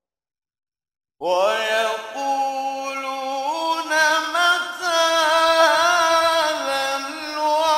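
A man reciting the Quran in melodic tajweed style, unaccompanied: after about a second of silence the voice enters and holds long, slowly gliding ornamented notes.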